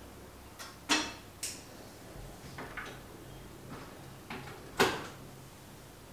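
A few sharp clicks and small clacks of candles being lit with a long lighter and a candle lantern being handled. The loudest come about a second in and just before five seconds in, with lighter ones between.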